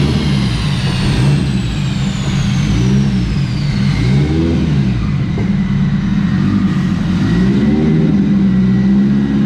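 A 2011 Subaru STI's turbocharged flat-four engine, running a big Precision turbo, revving up and down repeatedly. A thin high whine falls slowly in pitch over the first few seconds.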